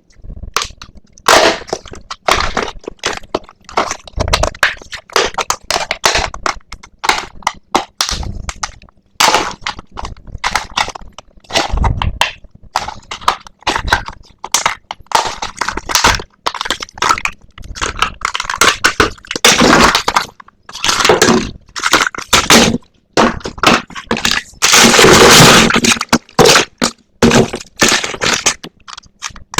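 Toy blind-box packaging being handled and opened: a dense run of crackling and snapping plastic and cardboard, with longer stretches of crumpling noise about two-thirds of the way in and again near the end.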